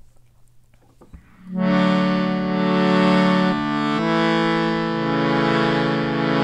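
Sustained chords on a reed instrument of the accordion or harmonium kind, starting about a second and a half in and changing chord about two seconds later, as the instrumental opening of a mantra chant.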